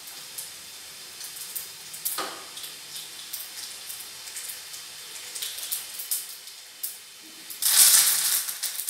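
Mustard seeds, urad dal and curry leaves crackling and sizzling in a teaspoon of hot oil in a small pan, a South Indian tempering (thalippu). Scattered sharp pops over a steady hiss, with a much louder rush of sizzling near the end.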